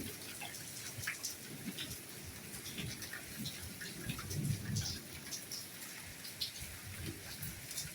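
Rain falling, with many separate drops ticking irregularly over a steady hiss and occasional soft low thuds, the strongest about halfway through.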